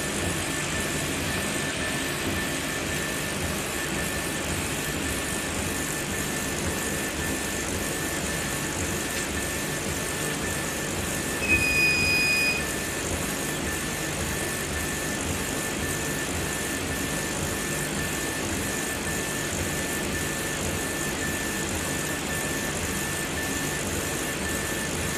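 CO2 laser engraving machine running while it engraves glass: a steady hum of fans and pumps with a faint high whine pulsing on and off in quick regular dashes. A short electronic beep sounds about halfway through.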